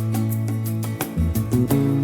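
Background music: a gently plucked acoustic guitar tune, the bass note changing about a second in.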